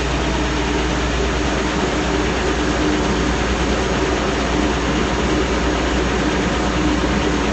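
Large stationary wood sander running steadily: a loud, even rushing noise over a low hum, as a board is fed through it for a sanding pass.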